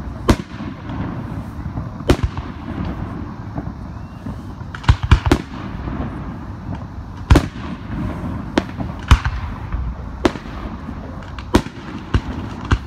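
Aerial firework shells bursting overhead in a series of sharp bangs at irregular intervals, with a tight cluster of several bangs about five seconds in. A continuous low rumble fills the gaps between the bangs.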